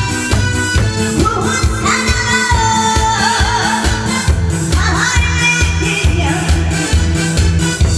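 A woman singing with vibrato over an upbeat backing track with a steady drum and bass beat, played through a PA system.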